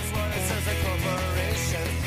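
Music with guitar, steady throughout.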